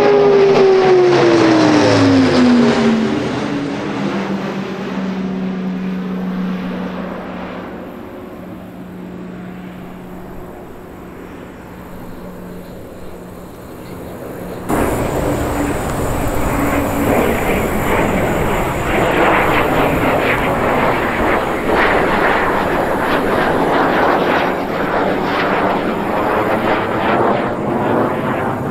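Airbus A400M Atlas's four turboprops passing overhead, their propeller drone dropping steeply in pitch within the first few seconds and then fading as it flies away. About halfway through, the sound cuts abruptly to the loud, steady roar of a military jet overhead.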